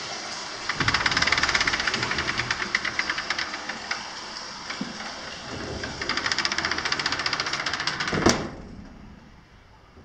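Frosted-glass sliding door rattling along its track as it is slid, in two runs of rapid rattling, then banging shut about eight seconds in.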